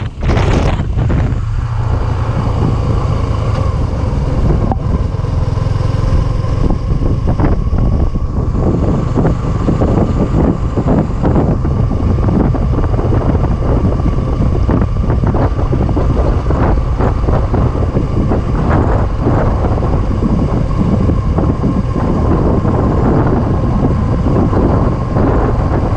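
Suzuki V-Strom 250SX's single-cylinder engine running steadily at low road speed, with wind buffeting the microphone.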